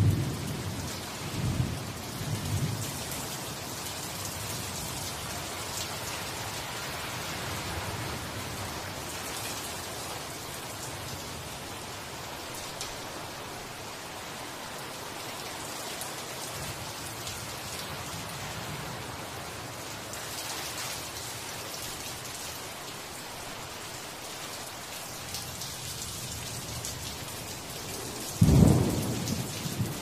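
Steady rain falling on broad leaves, an even hiss with drips. A few short low thuds come in the first three seconds, and a louder low thud comes near the end.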